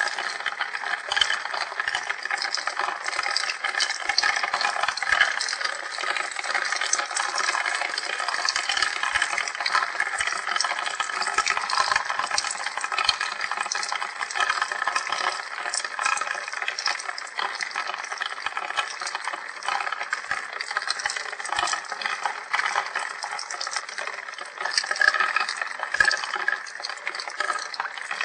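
Steady rain, with many small drops pattering close to the microphone.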